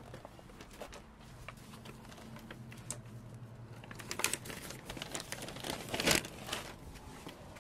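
Footsteps on a paved walkway: a run of light, irregular clicky steps, with a denser, louder patch of taps and rustle about four to six and a half seconds in.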